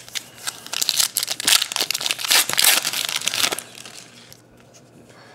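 Foil wrapper of a Prizm basketball card pack being torn open and crinkled in the hands, a dense crackling that stops about three and a half seconds in.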